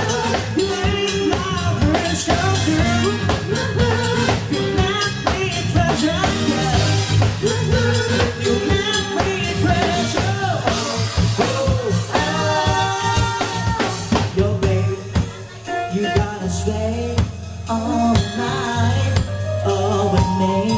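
Live band playing an upbeat dance song: a steady drum-kit beat with bass and keyboards, and a singer's voice.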